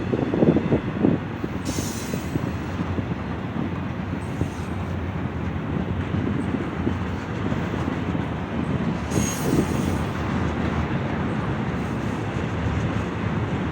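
Freight train rolling past with a steady rumble of wheels on rail, and two brief high-pitched bursts, about two seconds in and again about nine seconds in.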